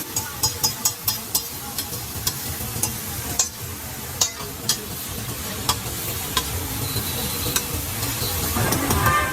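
Food sizzling on a hot griddle while a metal spatula taps and scrapes on it. The sharp clicks come quickly in the first few seconds and more sparsely later.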